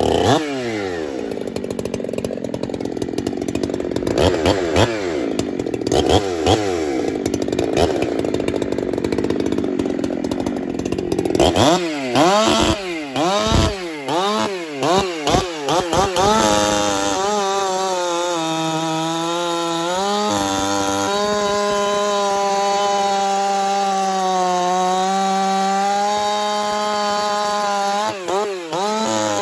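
Ported Husqvarna 372 two-stroke chainsaw, converted from a 362 and fitted with a dual-port muffler, cutting Douglas fir logs. It works in the cut with the revs rising and falling, and revs up and down repeatedly out of the wood around the middle. Then it holds a steady high rev through a long cut in a log round, briefly dipping near the end.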